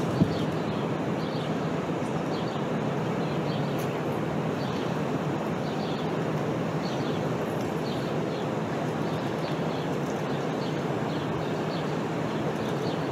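Steady outdoor background rumble with faint, repeated bird chirps.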